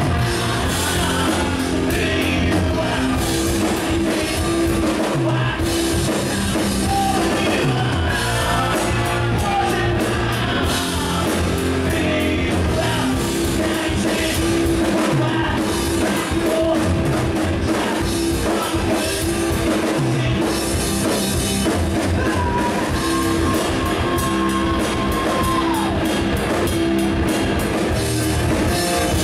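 Live rock band playing at full volume: electric guitars and a drum kit driving a steady beat under a lead singer, with one long held note near the end.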